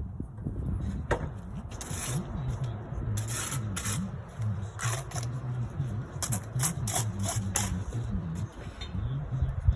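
A bricklayer's trowel scraping mortar against brick over and over in short, irregular strokes, over a steady low hum.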